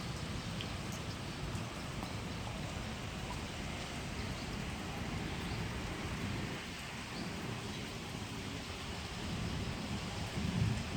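Steady rain falling, an even hiss, with a low rumble of thunder building near the end.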